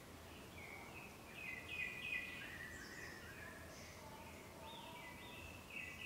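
Black paradise flycatcher singing: runs of short whistled notes, many gliding downward, with a loud run about a second and a half in and another near the end.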